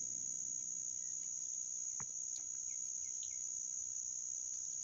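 Insects shrilling in one steady, unbroken high tone, with a single sharp click about two seconds in.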